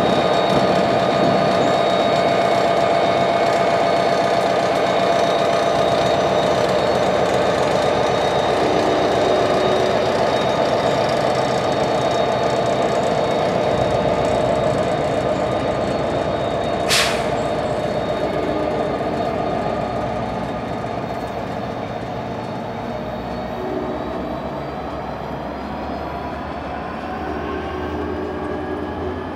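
NJ Transit PL42AC diesel-electric locomotive pushing its train away from the platform. Its engine runs with steady whining tones, growing fainter as it pulls away, and the tones climb in pitch near the end as the train gathers speed. A single sharp click about halfway through.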